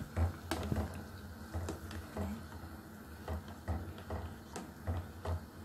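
Plastic slotted spatula stirring mini sago pearls in a pot of boiling water, knocking and clicking irregularly against the pot, a few taps a second.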